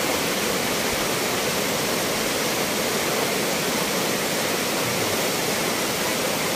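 Fast river water rushing over boulders in white-water rapids: a steady, loud, even wash of water noise with no break.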